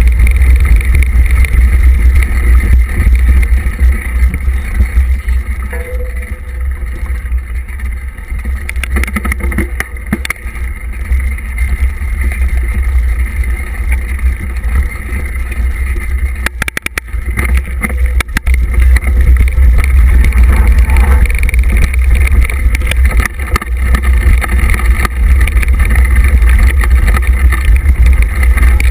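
Wind buffeting the microphone of a handlebar-mounted camera on a mountain bike riding down a dirt trail: a heavy, steady rumble mixed with tyre and frame rattle. It eases off for a stretch in the middle, where a few sharp knocks come just past the halfway point.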